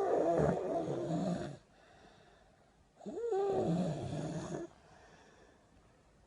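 A person snoring: long snores of about a second and a half each, coming about every three seconds, with quiet breaths between; the third begins right at the end.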